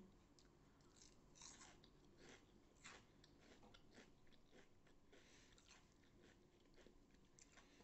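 Faint crunchy chewing of a breaded, deep-fried onion ring, with soft irregular crackles.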